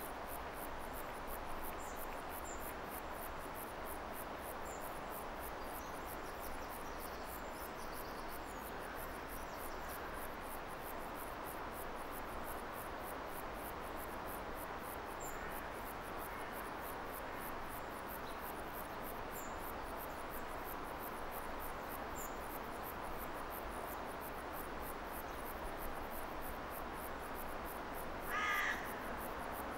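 Meadow insects trilling in a fast, even, high-pitched pulse over a steady outdoor hiss, with a crow cawing once near the end.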